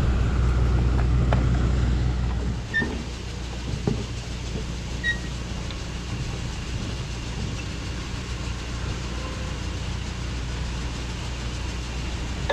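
Low, steady machine hum that drops away sharply about two and a half seconds in, with a couple of short knocks, then a quieter steady hum.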